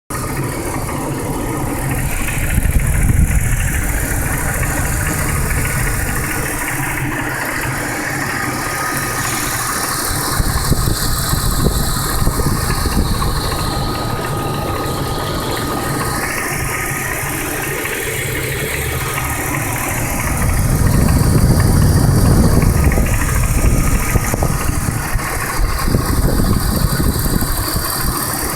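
A 1999 BMW 323i's straight-six engine running with a knocking/ticking noise whose cause is unknown; the owner has checked the spark plugs and found them fine, and no warning lights are on. The engine sound swells louder for a moment near the start and again for a couple of seconds about two-thirds of the way through.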